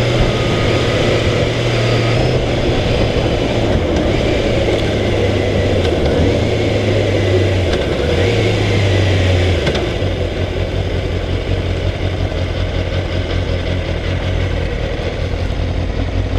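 Kawasaki ZXR400 inline-four engine running under way, its note stepping up and down several times with throttle and gear changes, over a steady rush of wind and road noise. From about ten seconds in it runs quieter as the bike slows in traffic.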